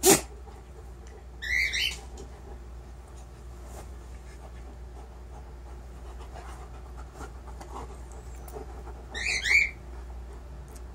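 A single sharp knock at the very start, then a caged pet bird squawks twice, briefly, about eight seconds apart.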